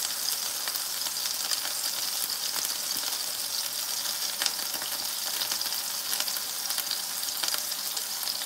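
Chicken breast frying in oil in a skillet: a steady sizzle with small scattered pops and crackles.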